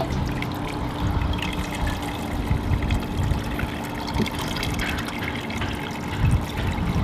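Hot water poured steadily from a stainless steel pot onto a muslin bag of steeped specialty grains in a strainer, splashing and trickling as the grains are rinsed. A lawn mower runs steadily underneath.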